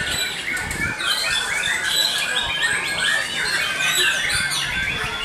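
Several white-rumped shamas (murai batu) singing at once, a dense, unbroken overlap of quick whistled phrases and chirps.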